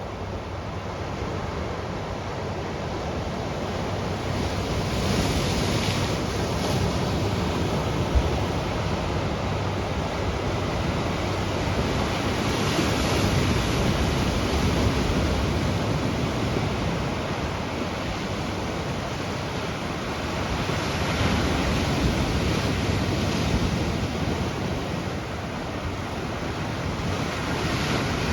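Ocean surf washing against a rocky shore, the rush swelling and easing with each wave about every seven or eight seconds, with one sharp knock about eight seconds in.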